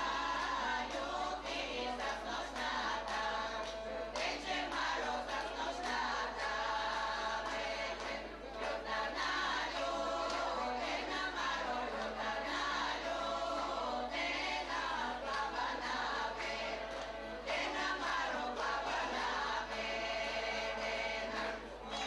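A women's folk choir singing an authentic Macedonian folk song together, with sustained, held notes.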